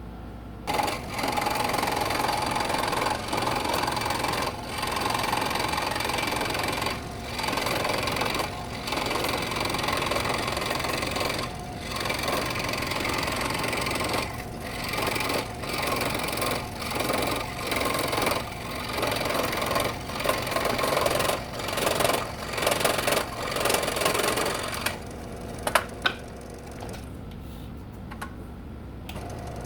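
Scroll saw running with its reciprocating blade cutting wood, broken by many short pauses. It gets quieter about 25 seconds in.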